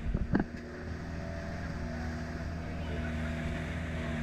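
Engine of a moving outrigger boat running at a steady pitch. There are a couple of brief knocks right at the start.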